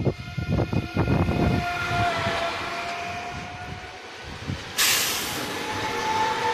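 SNCF TER double-deck electric multiple unit passing along the platform: wheels clacking over rail joints in the first second and a half, then a steady whine from the train. A sudden sharp hiss of air bursts out about five seconds in.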